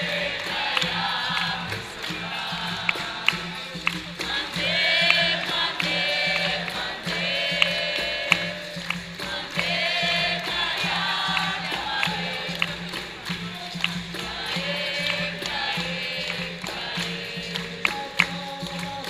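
Capoeira music: a group of voices singing over frequent sharp percussion strikes.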